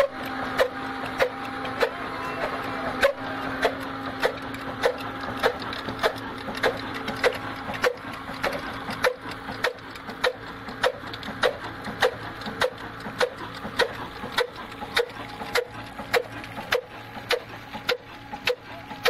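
Old slow-running black oil (crude-oil diesel) engine with a big flywheel running steadily under load, belt-driving a well water pump. It gives an even, sharp beat a little under twice a second over a steady low hum.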